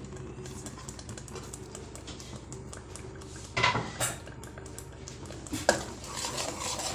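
A metal spoon stirring and scraping the masala in a cooking pot, clinking against the pot, with a few sharper knocks about halfway through and near the end.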